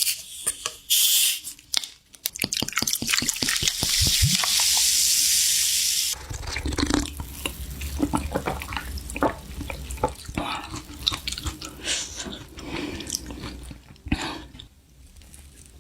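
Table sounds of a meal being started: rapid clicks and clinks of utensils against dishes, with liquid pouring steadily for about two seconds near the middle.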